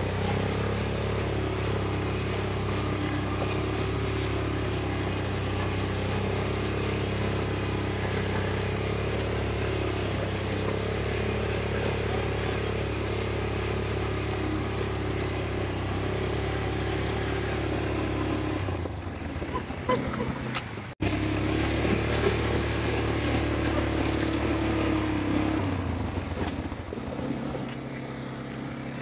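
ATV engines running steadily at low speed, an even motor hum. About two-thirds of the way through the sound cuts out for an instant, then the engine hum resumes.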